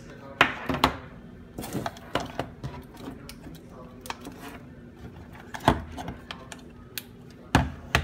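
Plastic clicks and knocks from a DJI Mavic 2 charging adapter, its cable plugs and a flight battery being handled, plugged together and set down on a table. There are several sharp knocks, the loudest about half a second in and near the end, over a faint steady hum.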